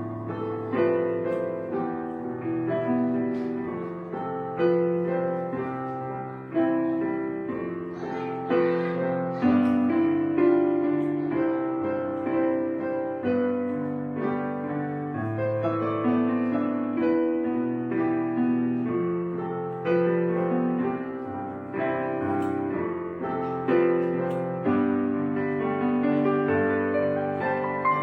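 Background piano music: a slow, unbroken run of single notes and chords, each struck and then fading.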